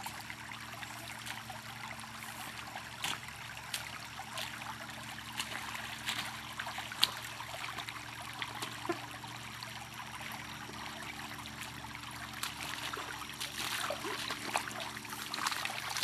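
Shallow creek water trickling steadily, with a scattering of short, sharp clicks.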